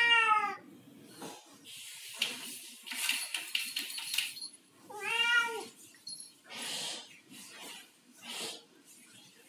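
A domestic cat meowing twice, each call rising and then falling in pitch: one right at the start and another about five seconds in. In between, scratchy, noisy sounds as it paws at a sliding mirrored door, asking for it to be opened.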